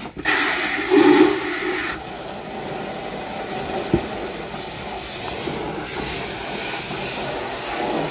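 Garden hose spray nozzle spraying water into a plastic drum of diluted bleach, a steady spray of water that whips the bleach water into froth. It is louder for the first couple of seconds, with a single short knock about four seconds in.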